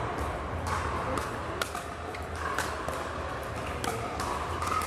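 Pickleball paddles hitting the plastic ball during a rally, a string of sharp pops at uneven intervals, the loudest about a second and a half in, echoing in a large indoor hall over a steady low hum.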